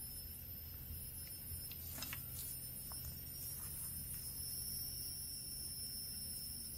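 Steady high-pitched insect chorus, with a few faint clicks or snaps about two and three seconds in.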